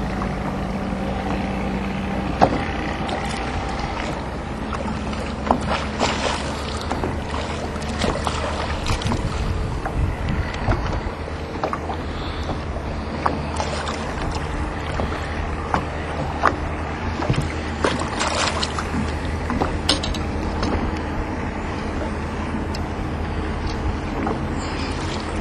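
Fishing boat's motor running steadily, with wind on the microphone and scattered short knocks.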